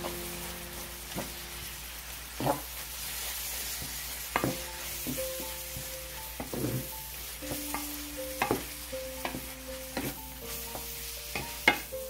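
Shrimp and diced bacon sizzling in butter in a stainless steel frying pan, stirred with a wooden spatula that scrapes and knocks against the pan every second or two.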